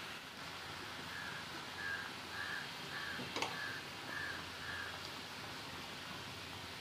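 Sugar syrup boiling in a nonstick pan, a faint steady hiss, with one sharp knock about three and a half seconds in as the peanut paste goes into the pan. A short high peep repeats about twice a second from an unseen source.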